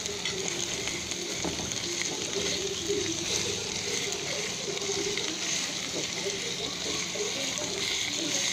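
Chopped garlic and onion sizzling steadily in hot oil in a frying pan, with a metal spatula stirring them and ticking against the pan now and then.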